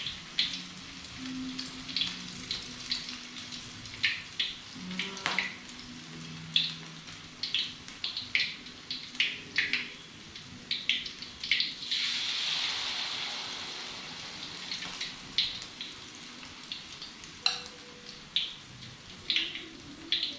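Vegetable fritter batter frying in a wok of hot oil: a steady sizzle with frequent sharp pops and crackles of spattering oil. About twelve seconds in the sizzle swells into a louder hiss for a couple of seconds as more batter goes into the oil.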